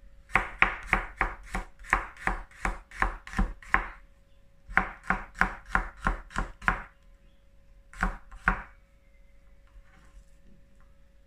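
Chef's knife slicing garlic cloves on a cutting board: a quick run of about a dozen chops, a short pause, about nine more, then two last chops.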